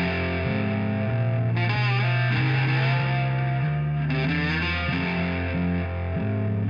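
Intro music led by distorted electric guitar over a steady bass line.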